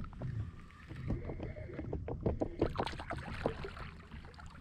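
Spinning reel being wound in against a hooked fish, with clicking and knocking from the reel and the kayak. Near the end the fish splashes at the surface beside the kayak.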